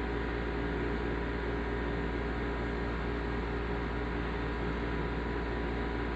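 Steady low hum with a hiss behind it, unchanging throughout.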